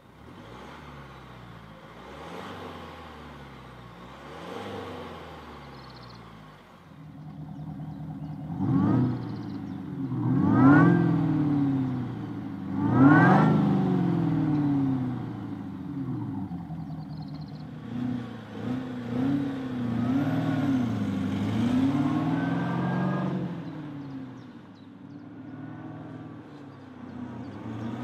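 Mercedes-Benz W204 C-Class with a Maxhaust active sound generator playing a V8-style exhaust note as the engine is revved repeatedly. Gentle rises and falls come first, then three quick, sharp revs in the middle, which are the loudest. Several shorter blips follow near the end.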